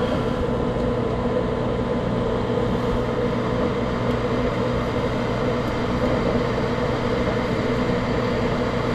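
A gas furnace running in its start-up cycle: a steady motor hum with a rush of air.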